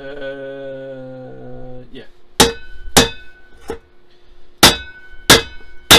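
Claw hammer striking a metal wok held over a bench vise: six hard clanging blows at uneven intervals in the second half, each leaving a short metallic ring, as a ripple is hammered into the pan's side. Before the blows comes a steady low hum lasting about two seconds.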